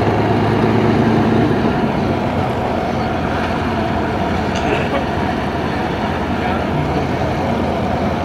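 Piston V-12 engines of World War II fighters (P-51 Mustang, P-38 Lightning) running steadily on the ground as a deep, even drone. It is a little louder in the first couple of seconds, then holds steady.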